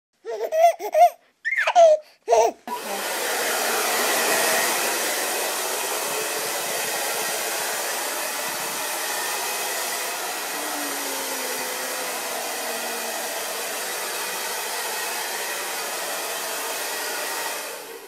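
A few short laughing bursts, then a handheld hair dryer blowing with a steady hiss for about fifteen seconds and switching off near the end.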